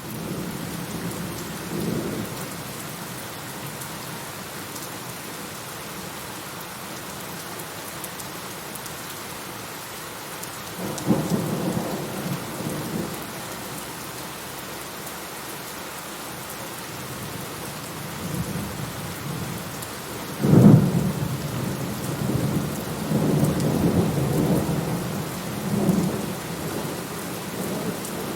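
Steady rain with rolling thunder. There is a low rumble about two seconds in and a louder roll around eleven seconds. The loudest is a sudden thunderclap about twenty seconds in, followed by several seconds of rumbling.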